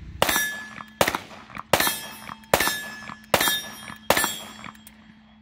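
Canik TP9DA 9mm striker-fired pistol fired six times in steady succession in single-action mode, a shot about every three quarters of a second, each with a brief ringing after it. The last shot empties the magazine.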